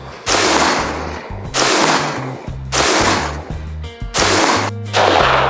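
BCM mid-length AR-15 rifle firing single shots in steady succession, about one every second and a quarter, each with a ringing tail. Background music with a bass line plays under the shots.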